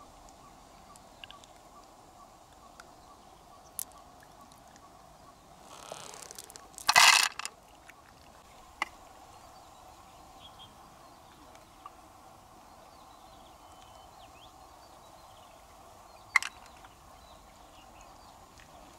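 Mussel shells and pearls being handled, with scattered small clicks, a rustle that builds into one loud brief clatter about seven seconds in, and another sharp knock near the end, over a steady faint outdoor background.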